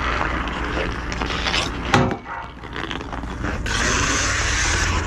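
Outdoor ice hockey: skate blades scraping the ice, and a sharp crack about two seconds in as a puck is shot into the net. A steadier scraping hiss starts a little past the middle.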